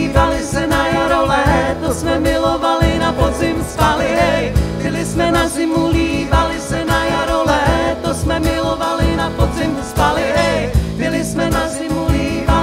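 Live folk band playing: acoustic guitar, electric bass guitar and drum kit, with a wavering lead melody line over them.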